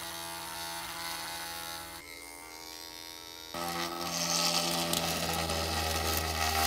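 Yakamoz mini electric hand drill running with a steady electric buzz. About three and a half seconds in it gets louder, with a gritty hiss on top, as the micro bit cuts through a thin metal bottle cap.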